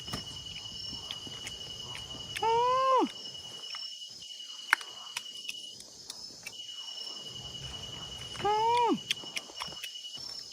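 Steady high-pitched insect drone, with two short vocal calls that rise and fall in pitch, one about a quarter of the way in and one near the end, and a sharp click near the middle.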